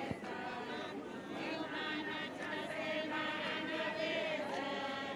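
A group of women singing together in chorus, several voices holding long notes.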